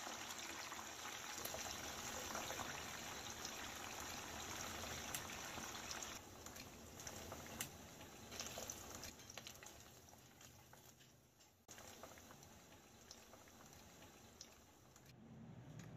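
Chicken pieces deep-frying in hot oil in a wok, the oil sizzling and bubbling steadily. About six seconds in the sizzle gets quieter, with a few light clicks.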